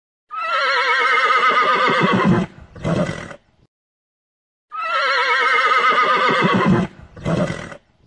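Horse whinnying: a long call of about two seconds with a quavering pitch, then a short lower call, and the same pair again about halfway through.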